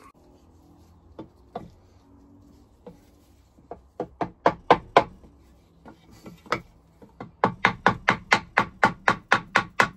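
Knocks on the lower unit of a Yamaha 9.9 hp outboard as it is tapped to break it free from the midsection, its bolts already undone. A few scattered knocks come first, then from about seven seconds in a quick, even run of about three knocks a second.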